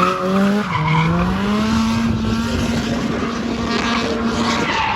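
Drift car engine at high revs while the car slides: the engine note dips about a second in, then climbs and holds high and steady, over the noise of sliding tyres.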